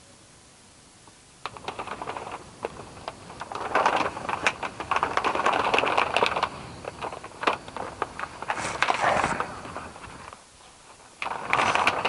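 Dry branches and twigs crackling and rustling with many sharp snaps, in uneven bursts that start about a second in and pause briefly near the end.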